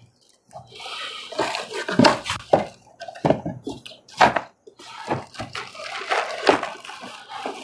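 Cardboard box and plastic packaging rustling and crinkling as contents are dug out by hand, with irregular sharp crackles and small knocks.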